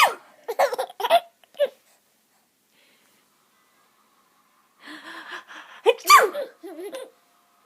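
Someone sneezes twice, at the start and again about six seconds in, the second time after a short wind-up. Each sneeze is followed by a second or so of high-pitched giggling laughter.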